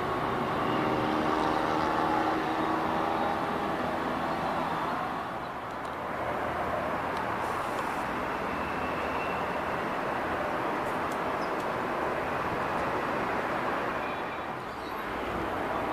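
Aircraft engines droning overhead. For the first few seconds it is the pitched drone of KT-1B Woong Bee turboprop trainers. After a short dip it becomes a steadier, noisier whir from a formation of EC-120 Colibri helicopters.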